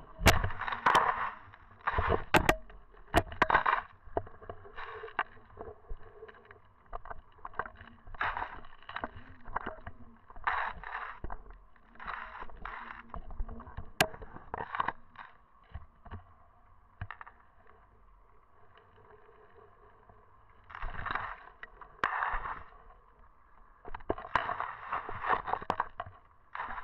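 Water rushing and gurgling past an underwater camera's housing in irregular surges, with a few sharp clicks and knocks, the loudest near the start.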